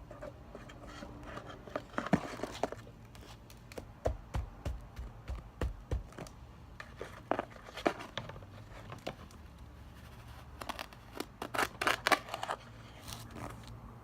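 Handling noises: several bursts of sharp clicks, taps and scraping with pauses between them, as small containers or tools are handled.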